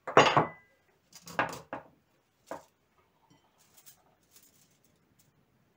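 A ceramic plate with a fork on it set down on the table, a sharp clink with a brief ring, followed by a few softer knocks. Then faint scrapes and ticks of a knife cutting a slice from a baked pie on foil.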